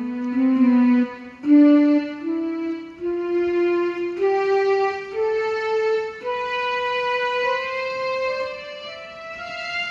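Casio CT-X700 digital keyboard played one note at a time in a slow rising line, each note held for about half a second to a second with a sustained, bowed-string-like voice.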